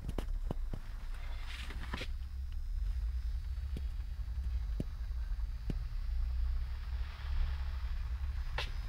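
Low, steady electrical hum from a salt-water conductivity rig powered through a dimmer and diode bridges, with scattered light clicks and taps.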